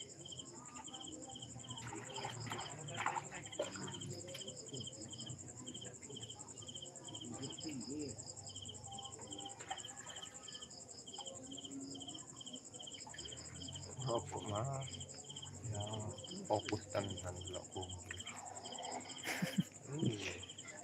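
Night insects: crickets chirp about three times a second over a continuous high trill. A few short knocks are heard in the middle and near the end.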